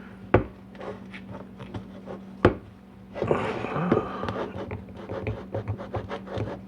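Hands working metal and plastic parts on a Tuned Port Injection fuel rail: a few sharp clicks, then rustling and a run of small ticks and taps as the twist-off injector clips are removed and the stuck fuel injectors are worked loose. A steady low hum runs underneath.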